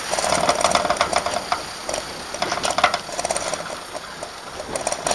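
Rapid mechanical rattling or clicking that comes in three bursts, each lasting about a second.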